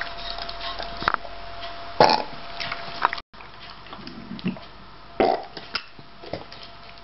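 A young Shiba Inu burping after eating: two loud burps, about two seconds in and about five seconds in, with a few softer throat sounds between.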